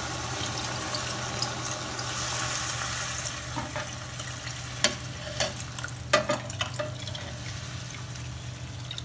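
Shrimp and fenugreek leaves sizzling in a hot pan as the tamarind–chili liquid goes in, with a spoon stirring and knocking sharply against the pan several times around the middle.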